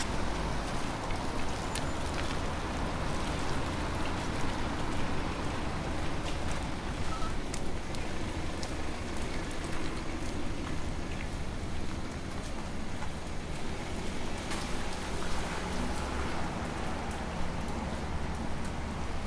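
Steady rain falling, with many scattered small drop ticks on nearby surfaces over a continuous hiss.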